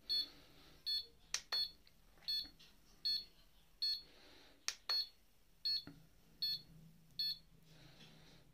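Handheld mini HIFU face-tightening device beeping in an even rhythm, about ten short high beeps roughly 0.8 s apart, as it fires its ultrasound pulses during a treatment pass. A few sharp clicks come in between.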